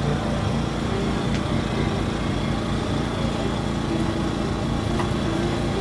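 A small engine running steadily, a constant low hum with no change in speed.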